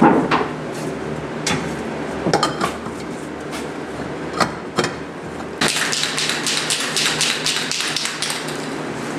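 Scattered sharp knocks and taps of hard objects, then from about halfway a quick, dense run of clicking and rattling, over a steady low hum.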